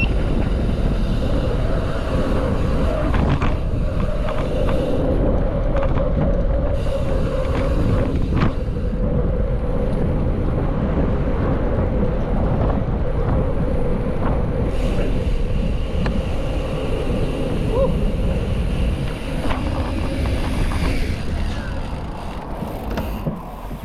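Wind buffeting the microphone while riding a mountain bike at speed, a loud, steady rumble with a constant hum running through it. It fades over the last couple of seconds as the bike slows.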